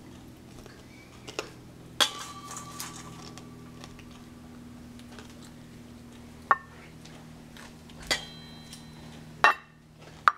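Tableware clinking against a glazed ceramic plate: about five sharp clinks spread out, each ringing briefly.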